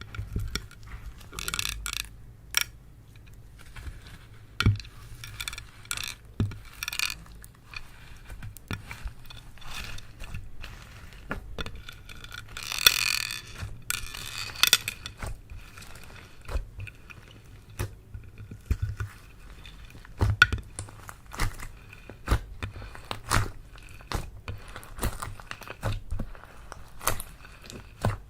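Slime being squished and worked by hand, making irregular wet clicks and sticky pops, with a longer squelch about halfway through.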